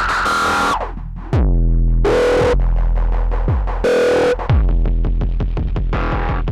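Electronic music from an Endorphin.es Queen of Pentacles Eurorack module: deep kick-like hits that drop in pitch, short bursts of noise, and sustained synth tones. About two thirds of the way in, a fast even run of repeated hits begins.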